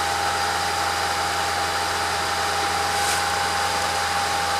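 Kalamazoo rail motorcar's engine idling steadily.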